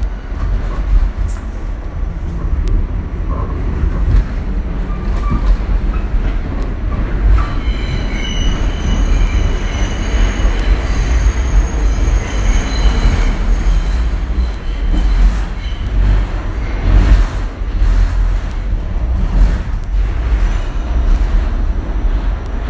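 R46 subway car running at speed, heard from inside the car: a loud, steady low rumble of wheels on rail. The wheels squeal in several high tones from about eight to fourteen seconds in, and a few sharp knocks come a little later.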